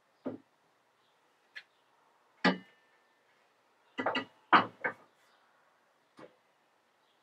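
Shovel with a wooden handle knocking and clattering against a wooden workbench as it is handled and set in place: about seven irregular knocks, the loudest a little past halfway. One knock about two and a half seconds in rings briefly, like metal striking.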